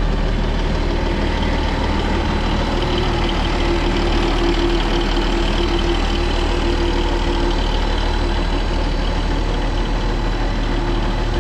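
Pikes Peak Cog Railway train's diesel engine idling with a steady drone; a higher steady tone rises above it for a few seconds in the middle.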